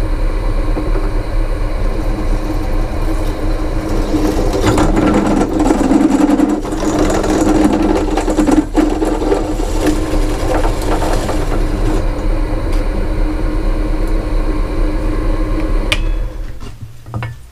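Bench pillar drill running, its bit cutting holes through a flattened copper pipe under a steady motor hum, with the cutting noise loudest through the middle. Near the end it stops with a click and the motor runs down.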